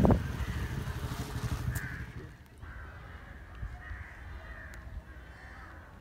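A passing motor vehicle's engine rumble fades out over the first two seconds. Quiet outdoor background follows, with a few faint, short bird calls.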